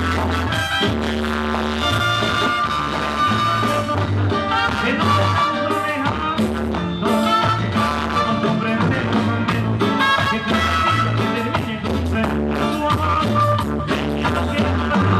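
Live band playing upbeat dance music over a steady drum beat, with a walking bass line and saxophone.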